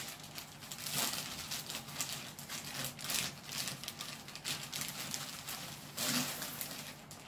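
Clear plastic air-cushion packaging crinkling and rustling as it is handled and pulled off a motorcycle exhaust silencer, with louder rustles about one, three and six seconds in.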